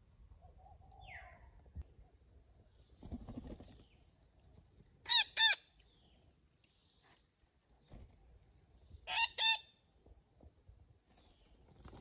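Parakeets calling: two pairs of loud, short, ringing squawks, the second pair about four seconds after the first. A thin, steady high-pitched whine runs underneath.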